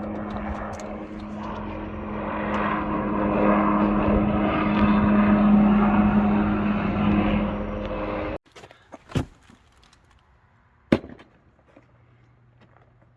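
Vehicle running with a steady low hum and a rush of noise, growing louder over several seconds, then cutting off suddenly about eight seconds in; a few sharp clicks follow in near quiet.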